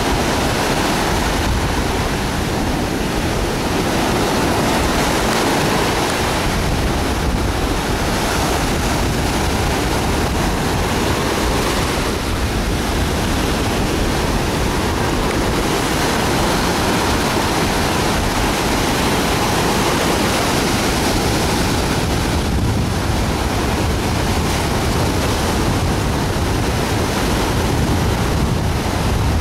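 Ocean surf breaking and washing in a steady, unbroken roar of noise, with wind buffeting the microphone.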